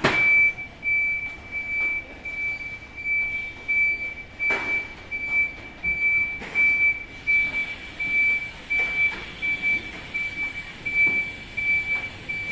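Nichiyu forklift's reversing alarm beeping steadily, about two high beeps a second, as the forklift backs up. A few loud knocks and rattles come in between, the loudest right at the start.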